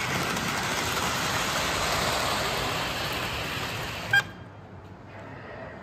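A toy train running on its track, a steady whirring noise that stops abruptly with a sharp click about four seconds in.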